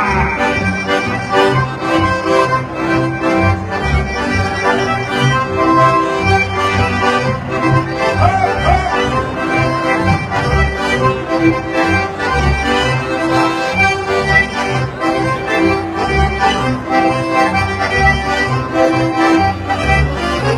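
Swiss Ländler folk music played live: Schwyzerörgeli button accordions play the tune and chords over a double bass that keeps a steady, even beat.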